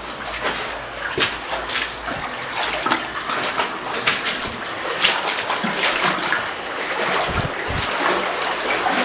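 Footsteps splashing and sloshing through shallow water, an irregular run of splashes as people wade.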